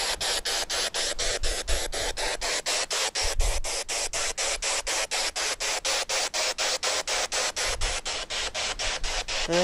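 Spirit box sweeping through radio frequencies: a steady hiss of radio static cut by short gaps about five times a second as it hops from channel to channel.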